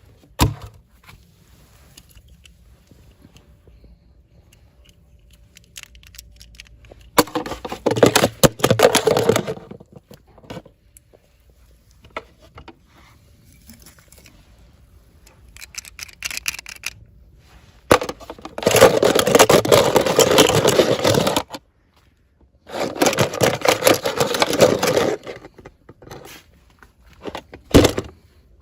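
Toy packaging being opened by hand: three bursts of crinkling and tearing wrapper, with scattered clicks and taps between them.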